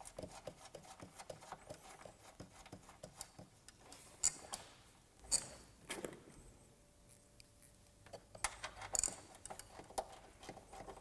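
Light, scattered clicks, taps and small metallic rattles of hand work on car wiring: a ground wire with a crimped ring terminal being routed and fitted to the battery earth post, and its 10mm nut refitted.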